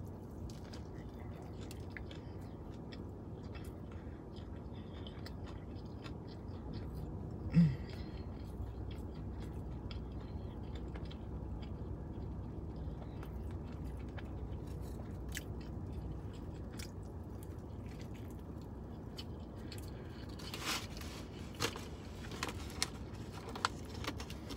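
Chewing a fried, breaded fish sandwich with small crisp crunches of the crust, over a steady low hum. One brief louder low sound comes about seven and a half seconds in, and louder sharp crunches cluster near the end.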